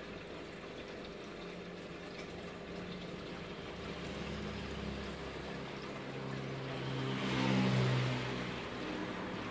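Steady trickle of water in a goldfish aquarium, with a low droning hum that swells and fades about seven to eight seconds in.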